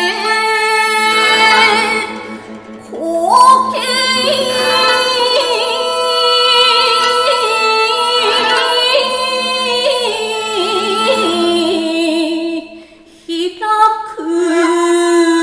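A woman reciting shigin, a classical Chinese-style poem chanted in long held notes with strong wavering ornament, over steady instrumental accompaniment. The voice pauses briefly twice, about two and a half seconds in and again near the end.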